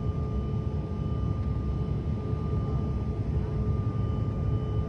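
A steady, low rumbling drone with faint steady hum tones over it, like heavy machinery or aircraft noise.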